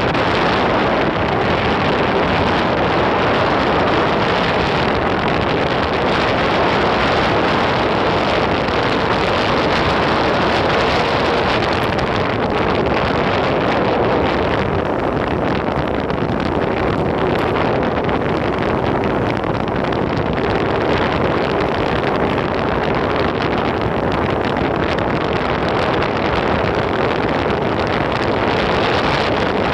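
Steady, loud wind rushing and buffeting on the phone's microphone while riding an electric skateboard at speed, mixed with the rumble of its wheels on the pavement.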